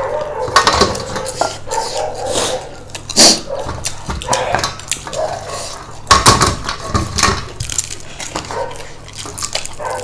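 Cutlery clinking and scraping against dishes while eating: a run of short sharp clicks, with louder clatters about three seconds in and again about six seconds in.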